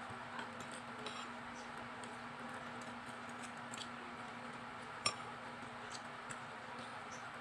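Fork and spoon clinking and scraping against a ceramic plate while eating: scattered light clicks, with one sharper clink about five seconds in.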